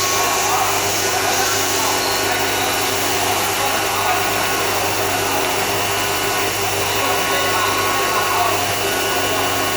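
A CNC profile vertical machining center running: a constant whirring hiss with several steady hum tones, unchanging throughout.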